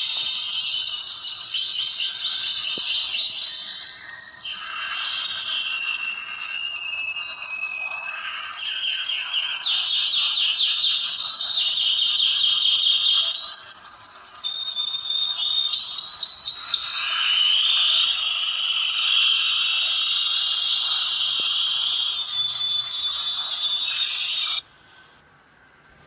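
A large flock of Gouldian finches and other small finches chirping continuously: a dense, high-pitched chatter of many overlapping calls. It drops away suddenly near the end.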